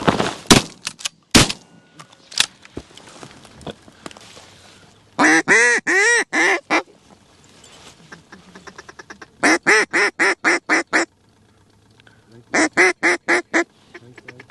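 Two shotgun shots about a second apart. Then three loud runs of evenly paced, rapid mallard quacks, several notes each, blown on a duck call.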